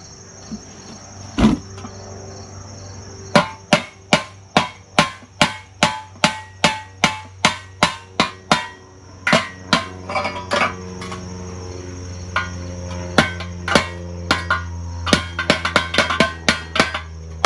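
Hammer striking the steel muffler of a lawn tractor to bend the metal in: a single knock, then a steady run of about two blows a second, turning irregular with quicker clusters of blows near the end.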